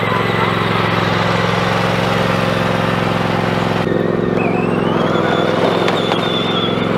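Zero-turn riding lawn mower's engine running steadily at a constant throttle.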